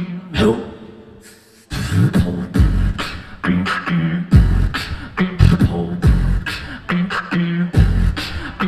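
Solo beatboxing into a handheld stage microphone: deep bass kicks and sharp hissing snare and hi-hat sounds over a held low hum. It dips almost to quiet about a second and a half in, then the full beat comes back in hard.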